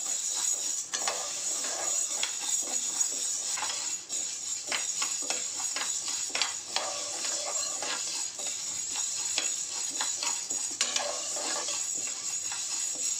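Dry whole mung beans (green gram) rattling and scraping against the aluminium pressure cooker as a metal ladle stirs them while they dry-roast: a continuous run of quick clinks and scrapes over a steady hiss.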